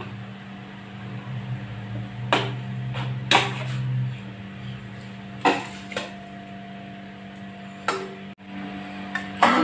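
A metal slotted spoon knocking and scraping against an iron kadhai as fried bitter gourd and onion are stirred into masala, with about five sharp clanks at uneven gaps. A steady low hum runs underneath.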